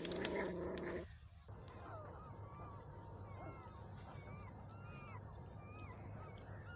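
Newborn puppies squeaking and whimpering: a steady string of short, high cries that rise and fall in pitch, about two or three a second, after a louder noisy sound in the first second.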